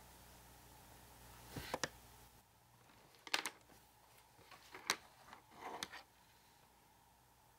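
Loose sheets of printer paper being handled: several short, crisp rustles and flicks as pages are picked up and leafed through, after a couple of quick clicks near the start over a faint hum.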